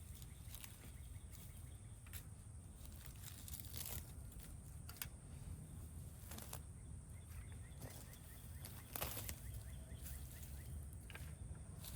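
Potato plant foliage and weeds being pulled up and rustled by hand, in scattered short rustles and snaps over a low steady rumble.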